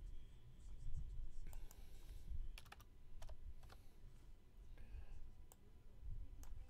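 Irregular clicks and taps of typing on a computer keyboard, over a low background hum.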